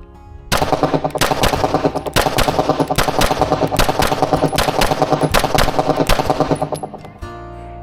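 Glock 47 9mm pistol fired in a fast string of shots, about three a second, starting about half a second in and stopping about a second before the end. Background music plays under it.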